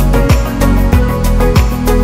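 Upbeat background music with a steady beat: a deep kick drum falling in pitch about every two-thirds of a second, sharp percussion hits and sustained instrumental notes.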